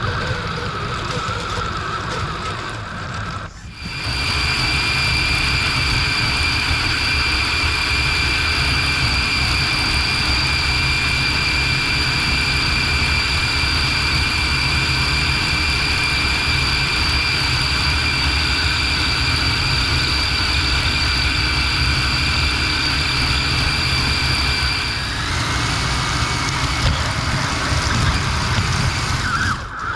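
Electric motor and geared drivetrain of an Axial Capra RC rock crawler running, heard from the car itself, with a steady high whine through most of the middle. The sound dips out briefly twice, once near the start and once near the end.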